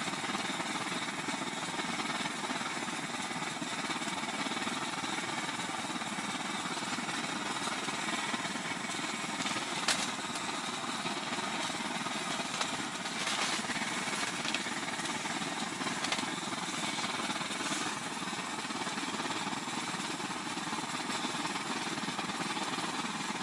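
Blowtorch burning steadily inside a tent, a continuous hiss, with a few short clicks in the middle.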